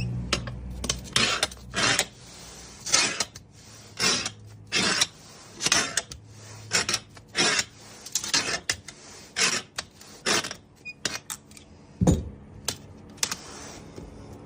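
A series of short, harsh screeching or scraping sounds, repeated irregularly about once or twice a second, with one low thump about twelve seconds in.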